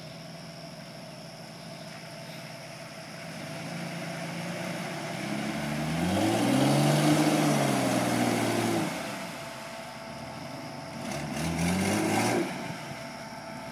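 1993 Jeep Cherokee's 4.0-litre High Output straight-six revving as the Jeep pushes through a muddy water hole, with water splashing. The revs climb and fall in one long pull about halfway through, then a second shorter burst near the end.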